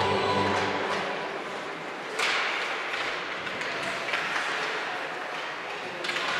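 Ice hockey play in an echoing rink: skates scraping on the ice and sticks clacking, with a sharp crack of stick on puck or puck on boards about two seconds in, and lighter knocks near four and six seconds.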